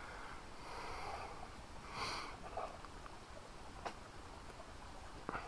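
Faint wood fire smouldering in a stove of stacked slate, with two sharp crackles, one nearly four seconds in and one near the end, over soft breathy hissing.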